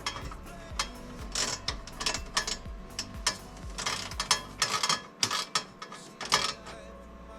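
Metal nuts being run down onto the mounting studs of a slot machine's printer bracket with a hand tool: a string of quick, irregular metallic clicks and rattles, a few a second, that thin out near the end.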